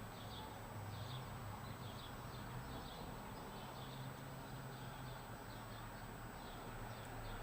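Faint, short, high chirps repeating about twice a second, like a small bird calling, over a steady low hum and faint hiss.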